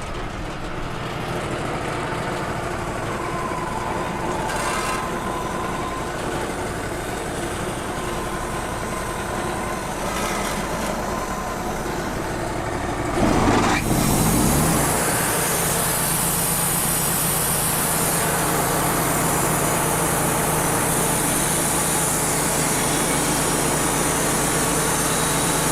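Wood-Mizer LT35 portable band sawmill's engine running steadily. About halfway through it gets suddenly louder, with a brief change in pitch, and settles into a steady run with a loud high hiss as the band saw comes up to speed.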